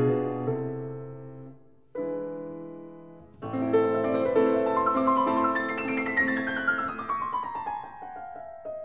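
Background piano music: a chord dies away, then fresh chords come in about two and three and a half seconds in, followed by a descending run of notes near the end.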